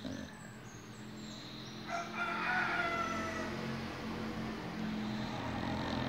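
A rooster crows once, about two seconds in, for a second and a half, over the low, steady snoring of a sleeping pit bull.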